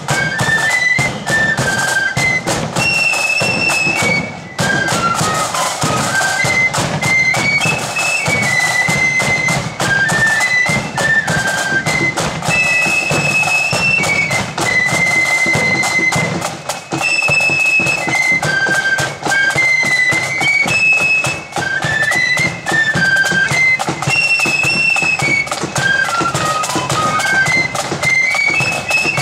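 Blood-and-thunder marching flute band playing a tune in unison on flutes, with side drums rattling and a bass drum beating time under the melody.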